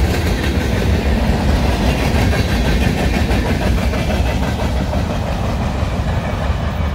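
Freight train boxcars rolling past on the track: a steady noise of steel wheels on rail, heaviest in the low end, easing slightly near the end as the last cars move off.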